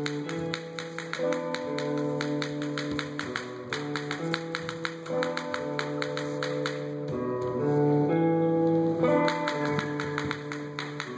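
Recorded music with a plucked-string melody over held notes, punctuated throughout by rapid, sharp clicks.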